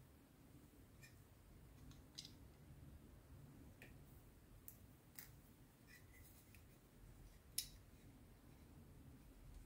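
Faint, scattered clicks and taps of small plastic model-kit parts being handled and dry-fitted together, with one sharper click about three-quarters of the way through.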